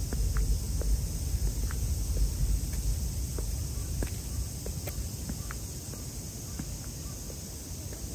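Outdoor ambience: a steady high-pitched insect chirring over a low rumble, with scattered light ticks and taps.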